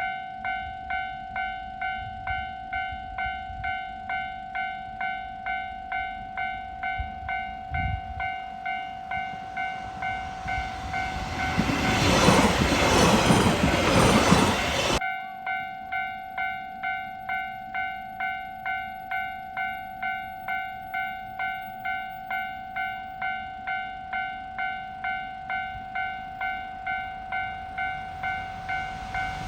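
Japanese level-crossing warning bell ringing at an even pace, about one and a half to two strikes a second. About twelve seconds in, a passing train's rush rises over the bell for about three seconds, then stops abruptly while the bell rings on.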